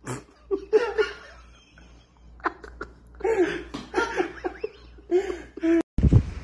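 People laughing in short bursts of voiced laughter. It breaks off abruptly near the end, and a louder low rumble starts.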